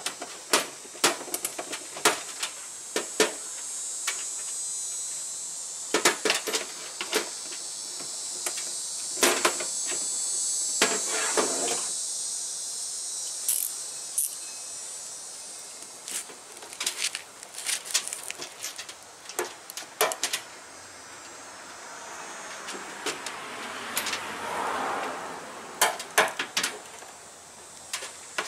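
Irregular plastic clicks and knocks as the wheel-arch fender liner and its clips are handled and pressed back into place, over a steady high hiss.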